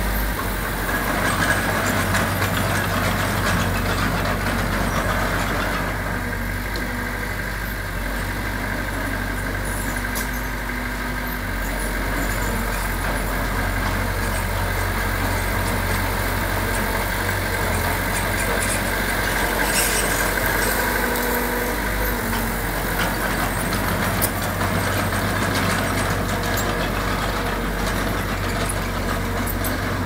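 Heavy diesel engine of earthmoving equipment (dump truck or bulldozer) running steadily, with a low hum and a thin high whine.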